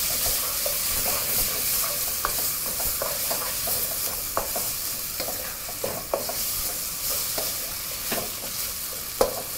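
Tomatoes and onions frying at high heat in a pot, sizzling steadily while a wooden spoon stirs them, with scattered short clicks and scrapes of the spoon against the pot.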